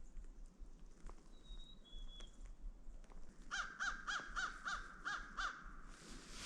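American crows cawing at a distance: a quick run of about seven caws, roughly three a second, a little past halfway through. Earlier there are two faint, short, high thin notes.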